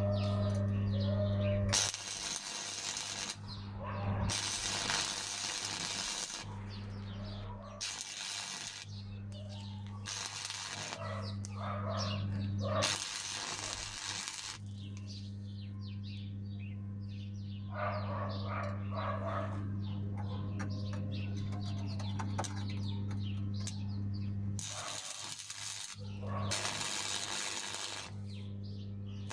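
Electric arc welding: the arc crackling and sizzling in several bursts of a second or two, with short pauses between, as the chain is welded onto the steel axe head. A steady low hum runs underneath.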